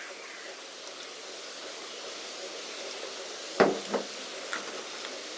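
Steady background hiss of room tone, with two brief soft knocks about three and a half and four seconds in, the first the louder.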